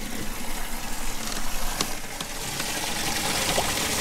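Steady hiss of water spraying and running into a bass boat's live well, with a few small clicks and splashes.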